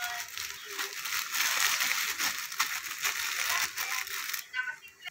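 Clear plastic bag crinkling and rustling as dried noodles are shaken out of it into a pot of broth, a dense crackle that stops about four and a half seconds in.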